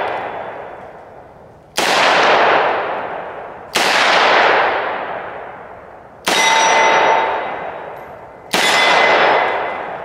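Four .357 Magnum shots from a Taurus 692 Tracker revolver loaded with 125-grain jacketed hollow points, fired slowly in double action about two seconds apart. Each shot leaves a long ringing tail.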